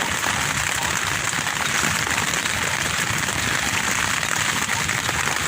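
Strong wind battering a tent: the tent fabric and stretched rain fly being shaken and pushed in, making a dense, steady rushing and rustling noise.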